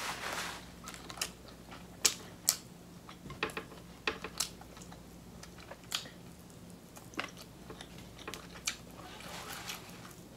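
Close-miked eating sounds: chewing with irregular sharp wet mouth clicks and lip smacks, one every second or so, and fingers being sucked clean.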